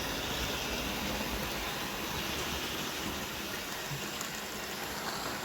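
OO gauge model locomotives running round the layout: a steady whirr of small electric motors and metal wheels rolling on the track.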